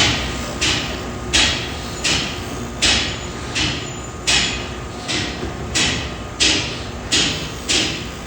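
Reciprocating metalworking machine tool running through its strokes: a sharp clack about every 0.7 seconds, a dozen in all, each fading quickly, over a steady low machine hum.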